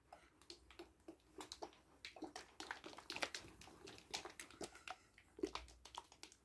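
A plastic bottle of hair dye being shaken hard by hand, making a quick, irregular run of clicks and knocks.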